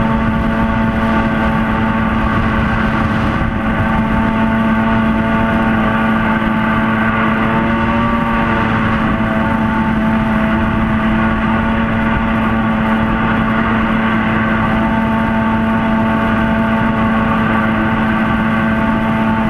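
Mini jet boat running under way, its engine holding a steady, nearly unchanging pitch over the rush of water and spray.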